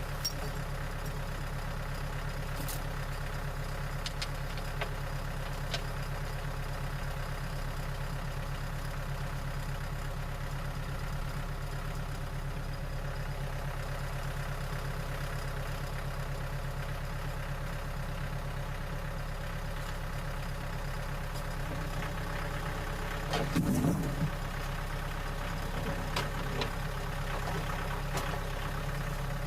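An engine idling steadily. A brief clunk comes about three quarters of the way through, followed by a few light clicks.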